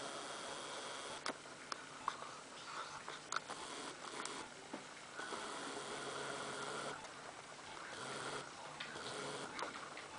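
A papillon chewing and mouthing a plush toy, breathing noisily through its nose in stretches of a second or two, with scattered small clicks from its mouth on the toy.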